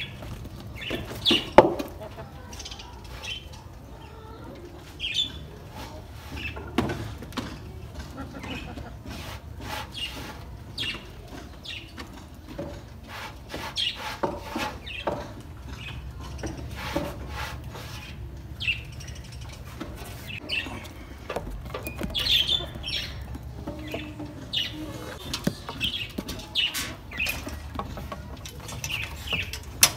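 Small birds chirping in short, scattered calls, with a few sharp knocks and scuffs among them, the loudest about a second and a half in.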